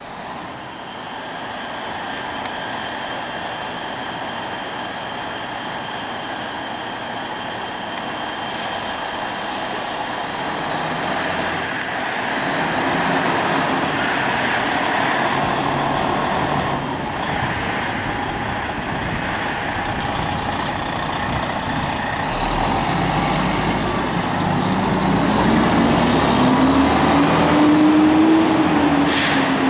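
Fire engine's diesel engine running, growing louder as the rig pulls out and drives off, its pitch rising as it accelerates during the last several seconds. A few short sharp hisses or knocks come and go.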